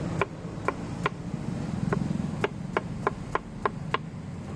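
A knife chopping watermelon, about nine sharp strikes, irregularly spaced, three in the first second and six in quicker succession in the second half.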